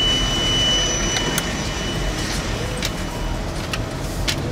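Engine and tyre rumble heard from inside a van as it pulls away from a raised barrier onto a wet road. A steady high beep fades out about a second in, and a few sharp clicks follow.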